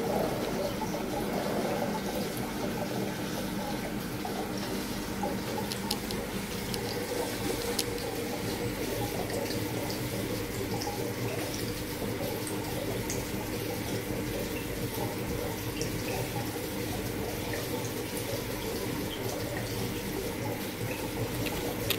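Steady running and trickling water from a reef aquarium's circulation, over a steady low hum, with faint small drips and clicks.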